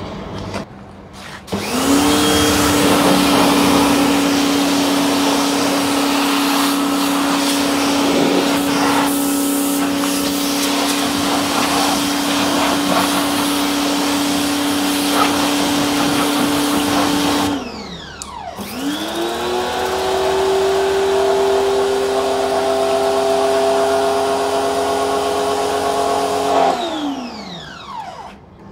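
Electric pressure washer motor starting with a rising whine and running steadily under a hiss of water spray, then winding down when the trigger is released, restarting about a second later and winding down again near the end.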